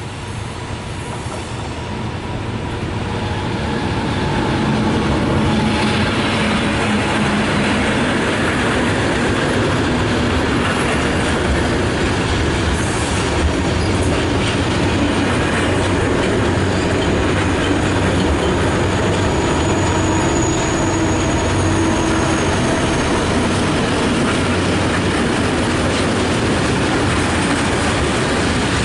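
Freight train rolling slowly through a station, growing louder over the first few seconds as it arrives, then a steady rumble of wagons with wheels clacking over rail joints and some wheel squeal.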